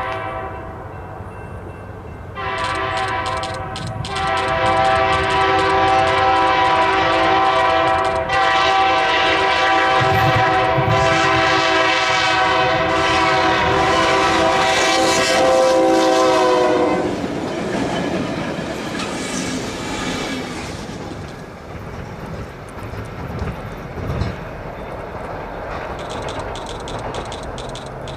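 Diesel locomotive air horn blowing its chord in long blasts for a grade crossing, then the locomotives rumbling past with wheels clacking on the rail joints after about seventeen seconds.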